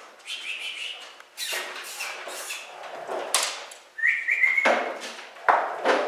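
A bird dog scrambling on rubber matting as it chases a thrown training bird and jumps back onto its stand: a run of scuffles and bumps. Short high chirping squeaks come near the start and again about four seconds in.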